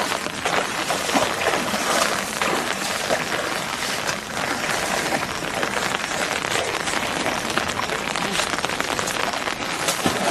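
Feet and a long pole splashing and sloshing through knee-deep floodwater, with sugarcane leaves brushing past: water being churned to drive fish toward a net.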